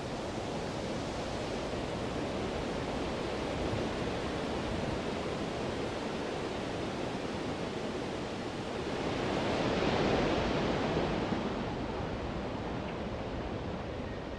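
Ocean surf sound effect: a steady rushing wash of waves, with one wave swelling louder about ten seconds in and then falling away.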